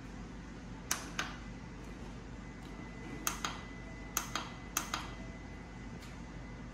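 Push buttons on the base of a Bonavita variable-temperature gooseneck electric kettle clicking under a finger, mostly in quick press-and-release pairs, about nine clicks in all, as it is switched on and set to 90 °C.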